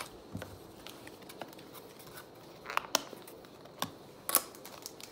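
Pokémon trading cards and their pack being handled on a table: scattered soft rustles and a few short sharp clicks, the loudest about three and four and a half seconds in.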